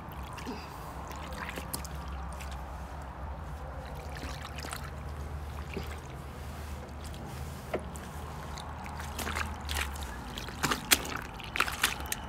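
Wet quilted bedspread being kneaded and scrubbed by hand in a plastic basin: water sloshing and squelching in the fabric, with sharper splashes growing more frequent near the end, over a low steady hum.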